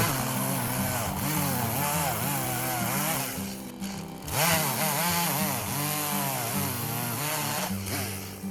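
Stihl MS170 two-stroke chainsaw cutting pine, its engine pitch sagging under load in the cut and picking up again over and over. It eases off briefly about three and a half seconds in, then revs back up.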